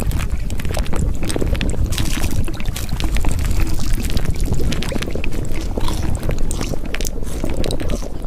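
Continuous rushing water noise, dense and steady, with many small splashes and crackles.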